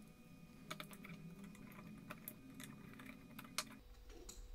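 Faint, irregular light clicks and taps of carbon-fibre frame plates, small screws and aluminium standoffs being handled and fitted together while a drone frame is assembled.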